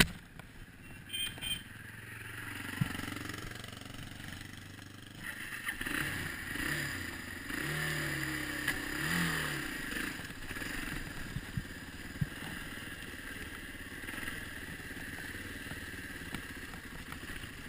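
Dirt bike engine running, its pitch rising and falling with the throttle in the middle stretch, then settling to a steadier, even note.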